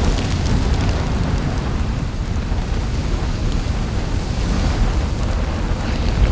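Added volcanic-eruption sound effect: a steady low rumble with faint scattered crackles.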